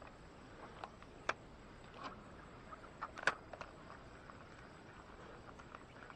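Fishing rod and reel being handled: a few short, sharp clicks, the loudest about a second in and another about three seconds in. Faint chirping in the background.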